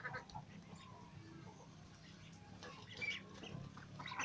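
Faint, sparse soft calls from a small flock of domestic ducks, growing a little louder near the end.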